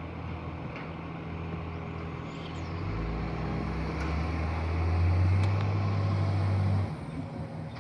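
Garbage truck diesel engine running, speeding up and getting louder for a few seconds, then dropping back suddenly near the end, with a faint high turbo whistle above it.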